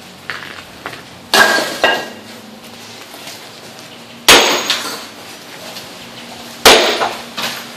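Sledgehammer striking a concrete floor slab to break it up: three heavy blows about two and a half seconds apart, each followed by smaller knocks of concrete pieces.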